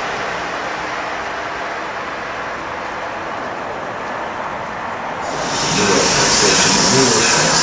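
Rushing rail noise of an Amtrak Acela Express trainset running through the station, slowly fading as it draws away. About five seconds in it gives way abruptly to a louder, hissing rumble of a train of passenger coaches rolling past on the rails.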